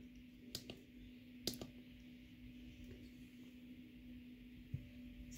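A few light clicks, two pairs about half a second and a second and a half in, from a bench power supply being switched off, over a faint steady hum.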